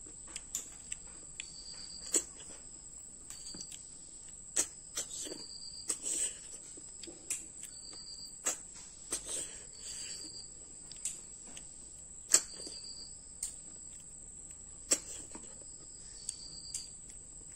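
Small cooked snails being eaten by mouth: sharp sucking pops and clicks at irregular intervals, the loudest a little past halfway. Behind them a steady high insect drone, with a short higher chirp about every two seconds.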